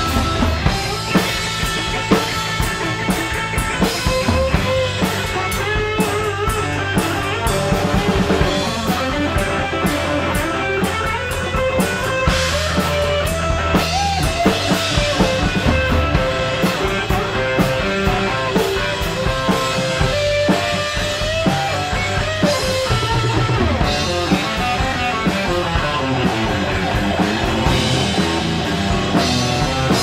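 Live rock band playing an instrumental passage: electric guitars, bass guitar and a drum kit keep a steady beat while a flute plays the melody line.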